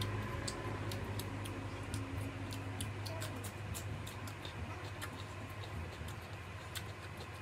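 Close-miked eating: irregular sharp mouth clicks and smacks of chewing, a few a second, over a steady low hum.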